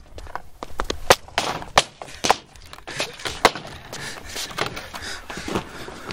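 Skateboard deck and wheels clattering on concrete: a string of sharp wooden clacks as the board is popped, flips and hits the ground.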